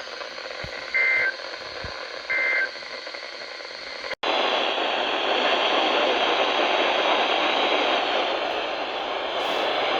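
Emergency Alert System end-of-message data bursts over radio: two short, raspy two-tone digital bursts about a second apart, the last of the three that close an alert, over radio hiss. About four seconds in, the audio cuts out for an instant and returns as a louder, steady hiss of radio static.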